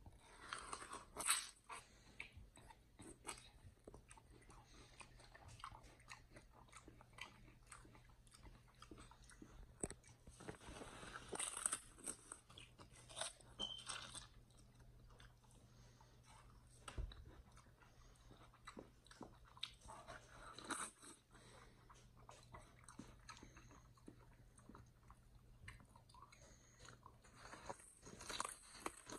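Chimpanzee biting into and chewing a mini watermelon's flesh and rind: crunching in irregular bursts, with quieter stretches between.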